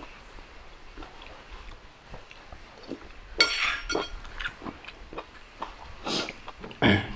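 Close-miked eating sounds: chewing and wet mouth noises, a metal spoon clinking against the bowl with a brief ring about three and a half seconds in, and two louder mouth noises near the end.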